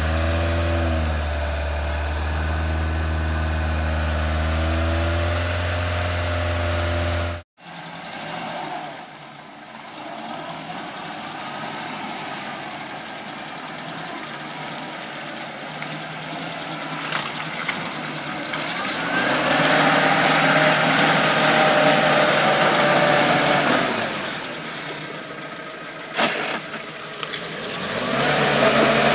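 Off-road vehicles' engines running in mud. For the first seven seconds a jeep-style off-roader's engine runs steadily while it is winched; then, after a sudden cut, a UAZ-469's engine revs up for several seconds as it drives through deep mud.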